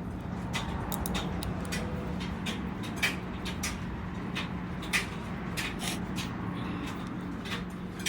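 Irregular light clicks and taps of an oil filter housing and its parts being handled while the seals are fitted, with two sharper taps about three and five seconds in, over a steady low hum.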